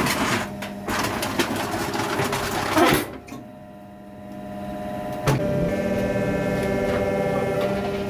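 Metal clattering and knocking for about three seconds, ending in a loud crash. After a short lull, the hydraulic baling press's pump motor settles into a steady hum from about five seconds in.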